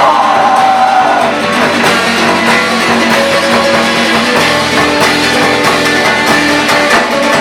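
Rock band playing live, loud: guitar to the fore over a drum kit.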